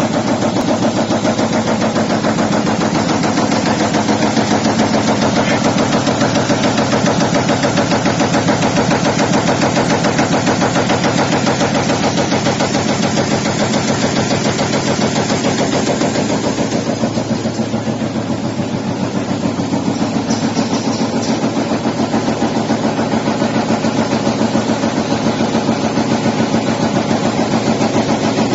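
Paper honeycomb core laminating machine running at speed, its blade shaft cutting in a rapid, even chatter of clacks over the hum of the drive.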